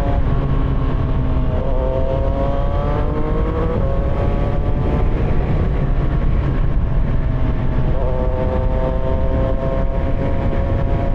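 CFMOTO 675SR-R's inline-three engine under way, its pitch climbing through a gear over a couple of seconds, holding, then picking up again after a gear change near the end. Steady wind rush on the helmet microphone underneath.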